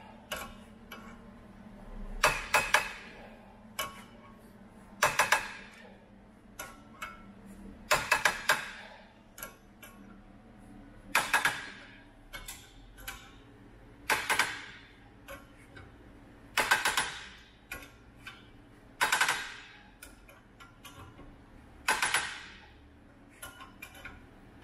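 Jaw puller being tightened by hand with a ratchet to pull a bearing off a power divider input shaft. Short bursts of sharp clicks come about every three seconds, each a stroke of the handle.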